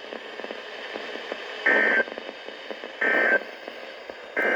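Three short bursts of EAS SAME digital data tones, a raspy two-tone warble, heard over radio hiss. This is the end-of-message code that closes an Emergency Alert System broadcast. The bursts start about one and a half seconds in and come a little over a second apart, the last one near the end.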